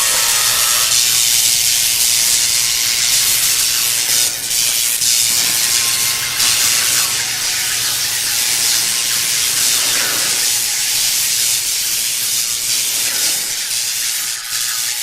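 Sound effect of a loud, steady hiss with a faint low hum beneath it.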